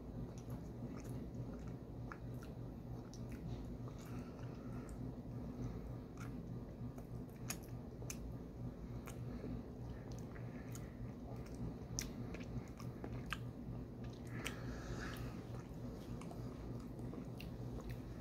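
A person chewing soft taro fudge close to the microphone, with scattered wet mouth clicks and smacks. A steady low hum runs underneath.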